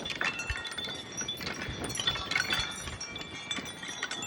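Wind chime jangling in strong, gusting wind, many overlapping ringing tones starting and fading irregularly, over the rush of the wind.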